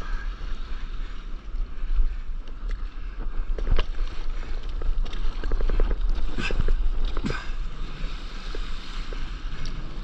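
Wind buffeting the microphone of a camera on a stand-up paddleboard, over water sloshing and splashing against the moving board, with a few sharper splashes, the strongest in the middle of the stretch.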